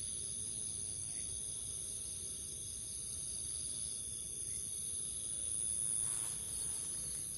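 Chorus of insects singing steadily in several high-pitched, unbroken tones.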